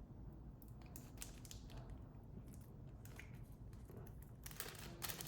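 Faint scattered clicks and handling noises of small USB adapters being picked up and handled, over a low steady room hum; the clicks come closer together near the end.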